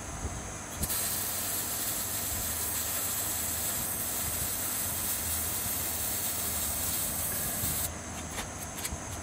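MIG welding arc on 1/4-inch steel: a steady hiss that starts about a second in and stops abruptly near the end.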